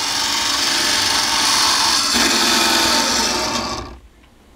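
A small electric motor on a homemade rig spins a rewound treadmill DC motor armature with a steady whirring hum, and the sound drops away about four seconds in as the spin stops.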